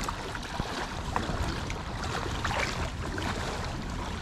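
Steady outdoor noise of a flowing river, with a low rumble and a few faint small clicks.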